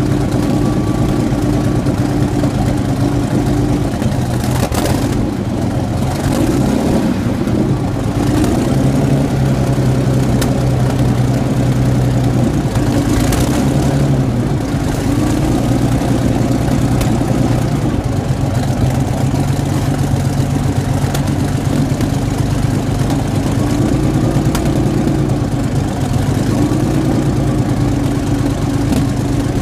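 Comet tank's Rolls-Royce Meteor V12 petrol engine running at a steady idle just after startup, its engine speed rising and falling slightly a few times.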